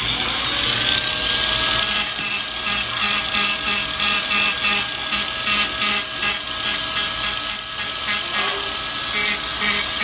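Cordless angle grinder with a sanding disc spinning up, then running with a steady whine. Its disc is worked against the plastic front bumper, adding an uneven rapid chatter through the second half.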